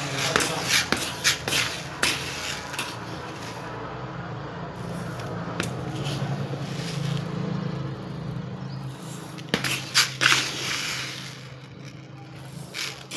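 Raw uncooked rice being chewed, a run of sharp crunches, with clusters of louder crunches in the first few seconds and again about ten seconds in, over a steady low hum.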